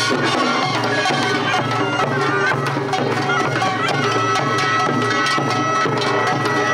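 Korean pungmul band playing: a taepyeongso, a double-reed shawm, carries a piercing melody over a fast beat of drums and small gongs, settling into a long held note about halfway through.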